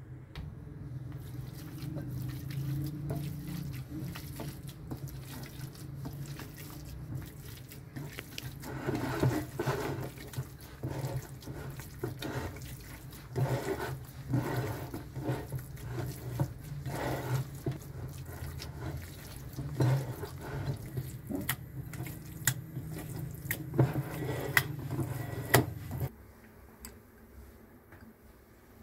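Wet squelching and squishing of raw minced meat kneaded by hand with spices in a glass bowl, in irregular strokes, over a low steady hum that cuts off near the end.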